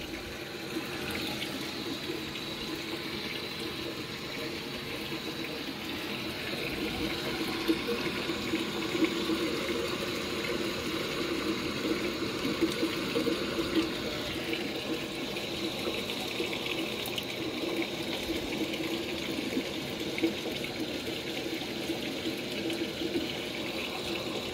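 Washing machine filling its drum with water during a clean washer cycle: a steady rush of water pouring in, with a faint steady hum under it.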